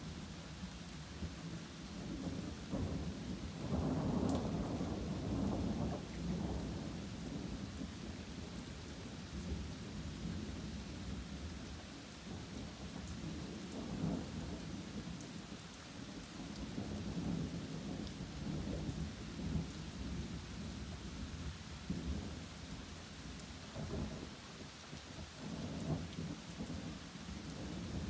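Thunderstorm: steady rain falling on oak and pine woodland, with thunder rumbling almost non-stop in long, low swells. The loudest swell comes a few seconds in, with more around the middle and near the end.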